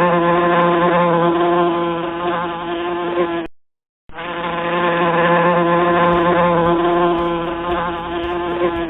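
A fly buzzing steadily. The buzz runs in two long stretches with a brief gap of about half a second in the middle.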